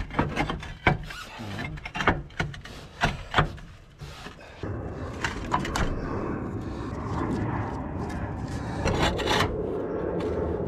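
Clay roof tiles knocking and clinking against each other as they are set into place, a quick series of sharp knocks in the first few seconds. About halfway in it gives way to a steady rough scraping rub, with a couple more knocks near the end.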